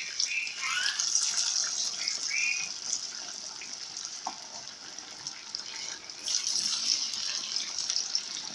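Batter-coated pomfret pieces deep-frying in hot oil, a dense sizzle and crackle as a fresh piece goes into the pan. It swells louder about a second in and again past six seconds, with a few short high chirps in the first couple of seconds.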